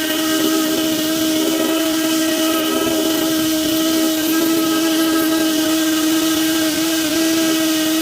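Electric drill running at a steady speed, spinning a 240-grit flex hone in the cylinder bore of a Ford engine block.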